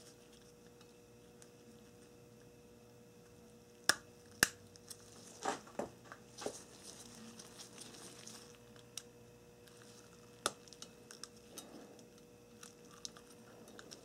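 Quiet handling of a plastic automotive wiring connector and its wires by gloved hands: two sharp plastic clicks about four seconds in and another about ten seconds in, with light scraping and rustling between.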